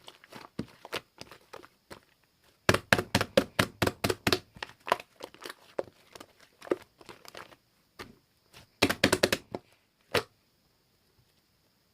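Mixed slime being squished and pressed by hand, giving rapid crackling pops and clicks in bursts, thickest about three seconds in and again about nine seconds in. The crackling stops a little after ten seconds in.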